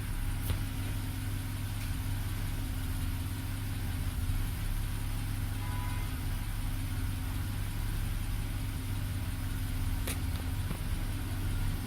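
BMW N51 straight-six engine idling steadily, with a very small random misfire that the mechanic puts down to ignition coils failing when hot. Two light clicks, one just after the start and one about ten seconds in.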